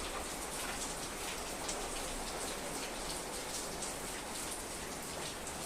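Steady rain falling: a continuous, even hiss of many small drops.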